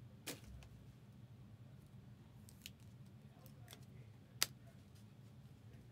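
Trading cards and packs being handled: a few soft clicks and taps, with one sharper click about four and a half seconds in, over a low steady hum.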